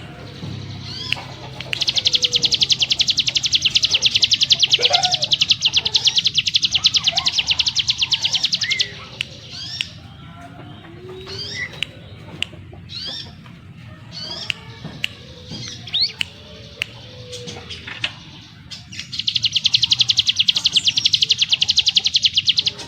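Ciblek gunung singing its 'ngebrem' song: a long, fast, dense rattling trill of several seconds, broken by a spell of separate short rising chirps, then the rapid trill starts again near the end.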